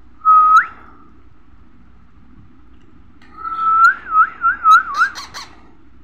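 A person whistling: a short steady note that sweeps sharply upward, then a couple of seconds later a longer steady note that breaks into a wavering warble, with a few sharp clicks near the end.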